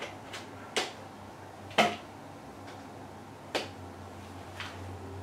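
Cables and plugs being handled beside a digital piano: five short, sharp knocks and clicks, the loudest about two seconds in, over a steady low electrical hum.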